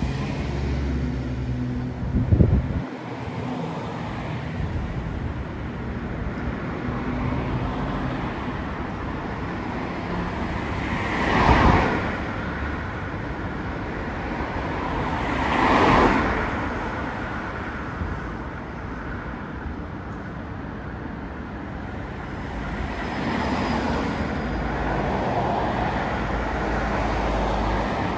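Road traffic: a steady hum of cars, with two vehicles passing close by about eleven and sixteen seconds in, each swelling and fading. A short thump comes a couple of seconds in.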